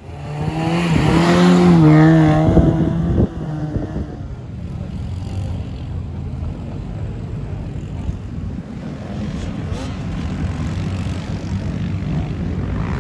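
Off-road vehicle engine revving under load on a climb, loudest in the first three seconds. After a sudden drop it gives way to a steadier sound of engines running.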